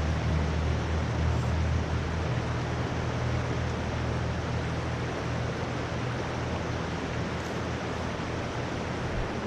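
Steady rushing of river water, with a low wind rumble on the microphone.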